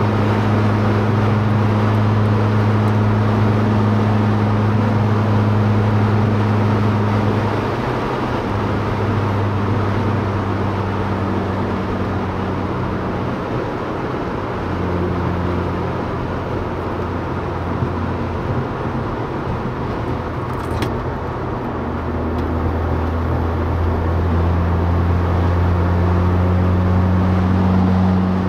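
Mazda RX-8's two-rotor Wankel rotary engine, with a Japspeed aftermarket exhaust, running at steady revs as heard from inside the car. Its note steps down in pitch three times, at about 8, 14 and 22 seconds in, and edges up again near the end.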